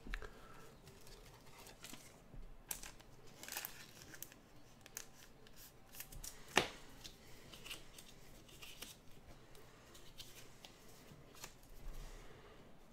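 Faint rustling and light clicks of trading cards in plastic sleeves being handled and sorted by hand, with one sharper click about two-thirds of the way through.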